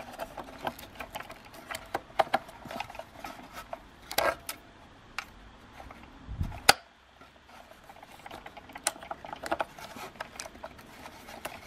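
Irregular small plastic clicks, taps and rubbing as a replacement line spool is handled and fitted into a string trimmer's plastic head, with a low bump and then one sharp click about six and a half seconds in.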